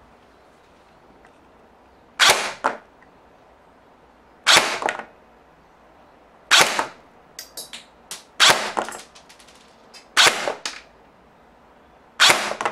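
Airsoft gun firing six single shots through a chronograph, about two seconds apart, each crack followed by a quick second knock, with a few lighter clicks between the third and fourth shots. It is a velocity test of the freshly cut inner barrel, shooting 0.30 g BBs at about 303 fps.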